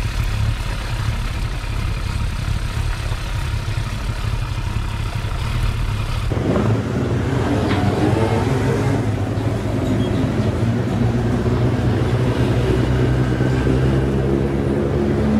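Kawasaki ZRX 1100 inline-four motorcycle engine idling steadily. About six seconds in, it cuts off abruptly and background music with sustained, wavering tones takes over.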